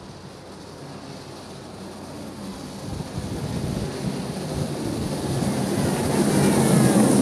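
A motorcycle and a farm tractor running slowly close behind one another, their engines a low rumble that grows steadily louder as they approach and is loudest near the end.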